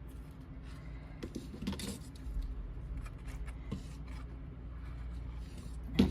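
Small craft pieces of board and paper being handled at a table: soft rubbing and rustling with a few light taps, and a sharper knock near the end.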